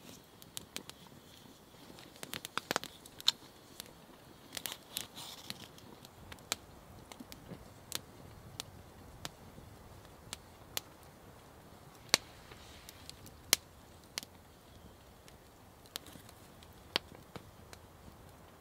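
Faint, irregular clicks and light paper rustling as a stack of small note cards is handled and flipped through, with a few sharper clicks scattered through.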